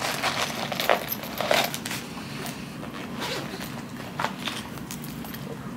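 A purse being handled as things are moved into it: a run of quick zipping and rustling strokes in the first two seconds, then a few short scrapes and clicks.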